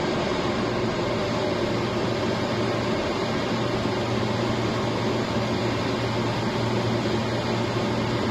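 Steady cockpit noise inside a Beriev Be-200 jet flying boat in flight: an even drone of the twin turbofan engines and airflow with a constant low hum.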